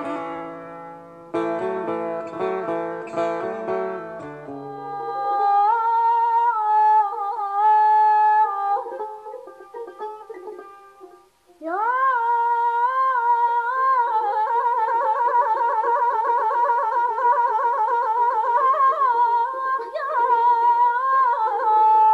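Persian traditional music: a plucked string instrument plays repeated notes, then a single melody line takes over, held and wavering with trill-like ornaments. The melody breaks off briefly near the middle and comes back with an upward slide.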